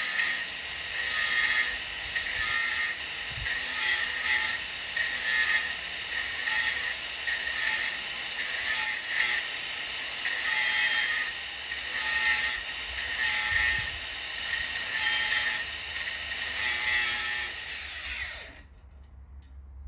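Sandpaper on a sanding block rubbed over primer in steady back-and-forth strokes, about one a second, stopping suddenly near the end.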